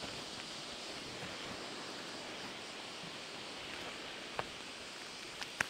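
Steady hiss of the sea washing along a rocky shore, with a few faint clicks near the end.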